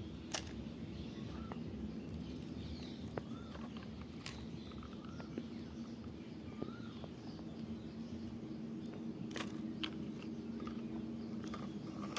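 Outdoor ambience: small birds chirping now and then over a steady low hum, with a few sharp clicks.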